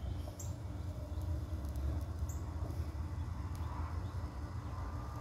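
Outdoor ambience: a low, fluttering wind rumble on the microphone, with two short, high bird chirps about two seconds apart.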